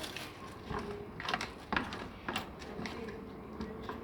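Scattered light clicks and taps of parts and tools being handled, about eight irregular ticks spread across the few seconds.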